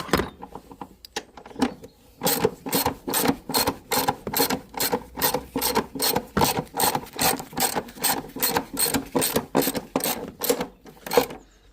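Hand ratchet wrench being worked back and forth to run down and tighten a bolt, its pawl clicking. A few scattered clicks at first, then about two seconds in a steady rhythm of roughly three strokes a second that stops shortly before the end.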